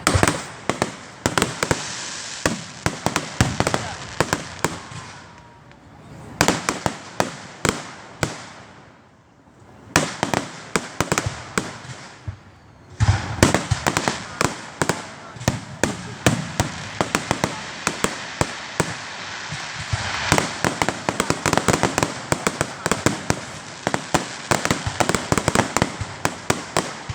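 Fireworks going off in rapid, dense volleys of sharp bangs and crackles, with two short lulls, about eight and twelve seconds in, before the barrage resumes.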